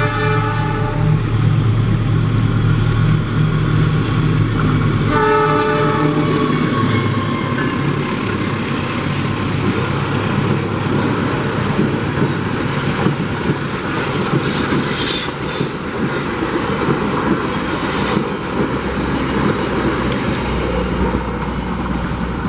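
Train passing: its locomotive horn sounds at the start and again about five seconds in, over a low engine drone. Then the train rolls by with steady rail noise and wheel clatter.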